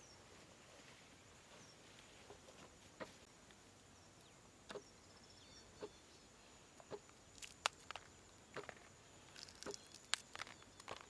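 Quiet outdoor background with scattered light taps and clicks, more frequent in the second half, and a few faint high bird chirps.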